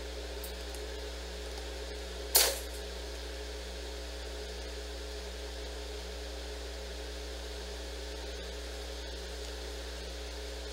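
Steady mechanical hum of the room, with one short, loud, sharp noise a little over two seconds in.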